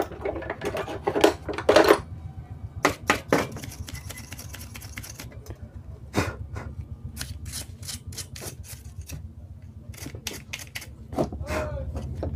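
A paintbrush scrubbing dust off a car stereo's front-panel circuit board, heard as a run of irregular clicks and taps mixed with short scratchy brushing strokes.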